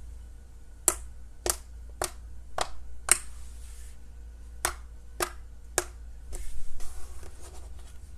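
Slime being played with by hand, making a series of sharp pops about two a second, then a short burst of crackling near the end.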